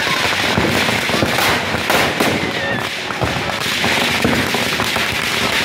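Firecrackers packed in a burning Ravana effigy going off in a rapid, irregular string of bangs and crackles.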